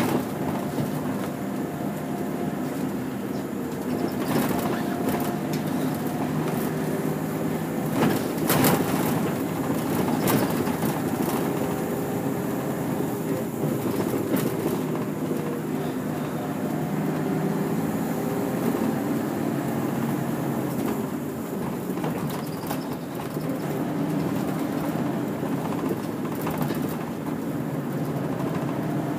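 Interior of a moving route bus: the engine runs with its note drifting as the bus changes speed, over road noise, with a few knocks and rattles, the strongest about eight seconds in.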